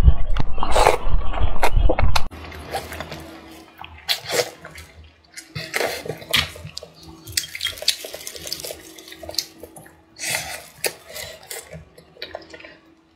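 Loud close-up slurping and chewing of saucy fried noodles. About two seconds in, the level drops suddenly to quieter chewing of soft cooked winter melon, with scattered smacks and clicks.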